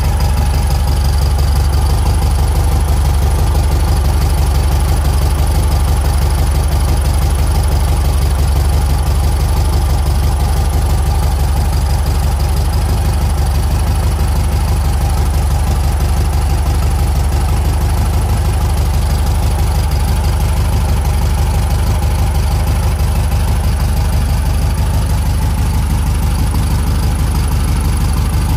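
1976 Volkswagen Type 1 (Beetle) air-cooled flat-four engine, fitted with twin carburettors, idling steadily. It is heard close up with the engine lid open.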